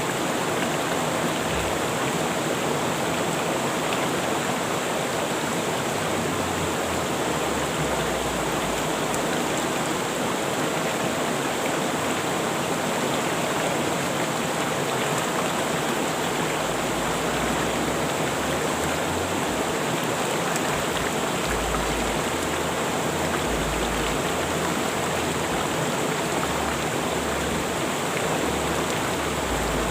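River water rushing steadily over rocks, an even hiss of flowing water with no change.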